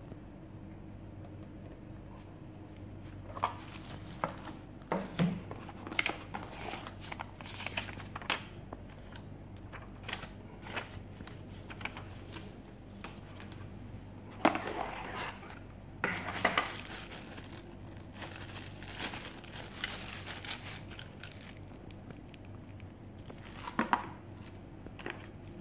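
Paper instruction leaflet and cardboard packaging being handled: irregular rustling and crinkling with light knocks, the sharpest about 14 and 16 seconds in and again near the end.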